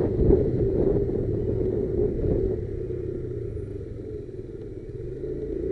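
Motorcycle engine running, growing quieter over about four seconds and then louder again near the end.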